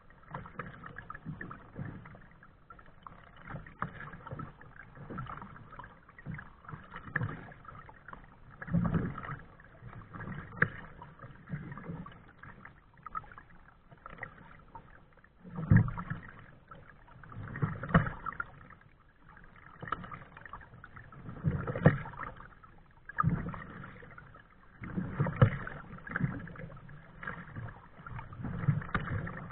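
Kayak paddle strokes: the blades dipping into and splashing the water in uneven surges every second or two.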